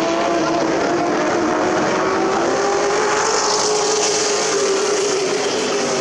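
Super Truck racing engines running on the oval track, a steady engine note whose pitch rises slightly around the middle.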